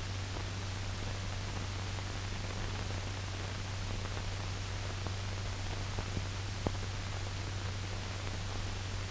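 Steady hiss and low hum of an old film soundtrack, with two faint clicks about two-thirds of the way through.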